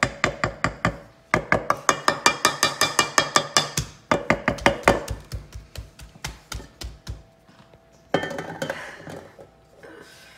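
A spatula beating cake batter in a stainless steel mixing bowl: quick, regular strokes, about six a second, that knock the bowl and set it ringing. The strokes fade off after about five seconds. About eight seconds in there is a brief clatter as the metal bowl is handled.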